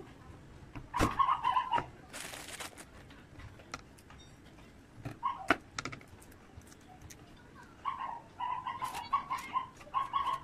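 Short runs of bird calls, heard about a second in, briefly around five seconds, and from about eight seconds on. Between them come faint clicks and rustles from garlic cloves being peeled by hand on a plastic cutting board.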